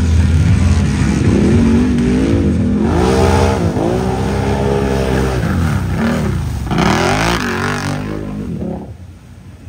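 ATV engine revving hard as it is driven through a mud and water hole. Its pitch rises and falls over and over as the throttle is worked, and it fades near the end.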